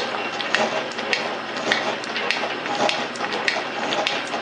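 Rhodes metal shaper running, its ram stroking back and forth, with a steady motor and drive noise and a sharp click repeating a little under twice a second.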